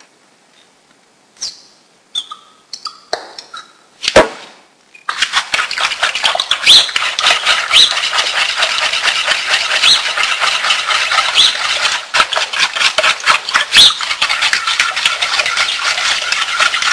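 A few separate knocks, then from about five seconds in a loud, steady, rapid clatter of a whisk beating pancake batter in a plastic mixing bowl.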